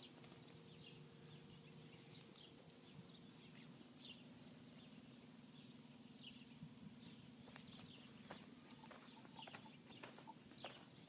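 Near silence with faint, short bird chirps scattered throughout over a low steady hum, and a few soft clicks in the last few seconds.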